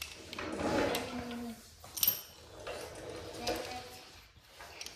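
Small metal tool parts being handled and tapped together, with a sharp metallic clink about two seconds in and lighter clinks after it. A short voice sound comes in the first second or so.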